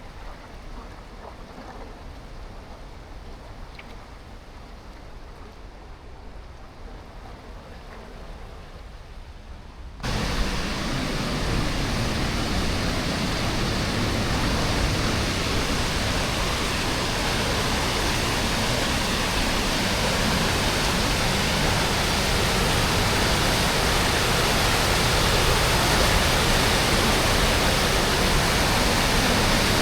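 A faint low rumble, then about ten seconds in a sudden switch to loud, steady rushing water: river water pouring through a partly open weir gate.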